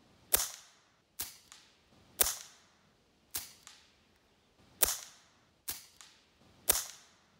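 AirForce TalonP PCP air pistol firing seven shots about a second apart, alternating between the bare gun and the gun fitted with a DonnyFL Ronin suppressor. Four loud, sharp cracks come from the unsuppressed gun. Three much quieter shots come from the suppressed gun, each followed by a faint second click.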